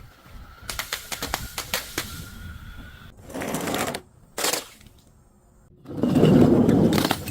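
Brittle objects being crushed and broken: a quick run of sharp cracks, then a couple of short crunches, and a louder, longer crunch near the end.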